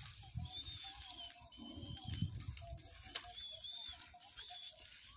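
A bird calling with short, high chirping notes repeated about once a second, over low rustling of dry grass underfoot and a single sharp click about three seconds in.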